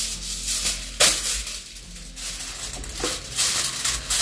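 Aluminum foil crinkling as it is pulled from its box and torn off, then spread and smoothed flat by hand, with sharp crackles about a second in and again about three seconds in.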